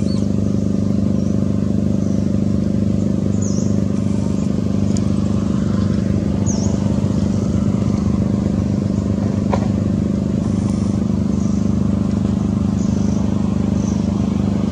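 Steady, unchanging low hum of a running engine, with a few faint short chirps high above it.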